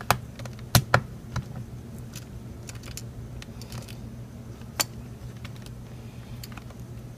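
Sharp clicks and light taps of a metal hard-drive caddy being handled and seated in a MacBook Pro's optical-drive bay: a few clicks in the first second and a half and one more near five seconds, over a low steady hum.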